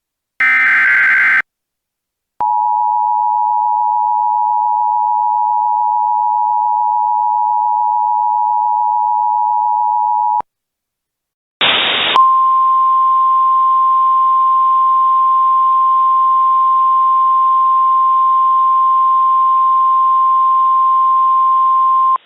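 Emergency Alert System tones. First comes a second-long burst of buzzing SAME header data tones. After a short gap, the two-tone EAS attention signal is held steady for about eight seconds; then, after another pause, a brief burst of hiss gives way to a single steady NOAA Weather Radio warning tone over static for about ten seconds.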